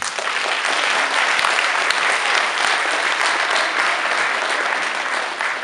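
Audience applauding steadily, a dense clapping that eases off slightly near the end.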